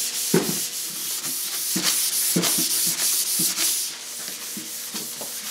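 A piece of kraft paper rubbed back and forth over a tung-oiled cherry tabletop, a dry hiss with each stroke, burnishing off dust nibs to leave the cured finish smooth without changing its sheen. The rubbing stops about four seconds in.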